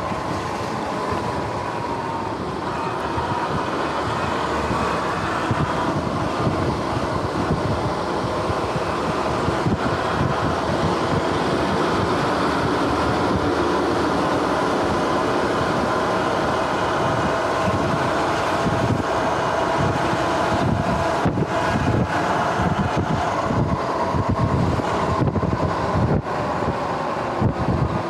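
Electric dirt bike cruising on pavement: a steady motor whine with the chain drive running, over tyre rumble and wind on the microphone. The chain sounds a bit rough, in the rider's words, as if due for maintenance.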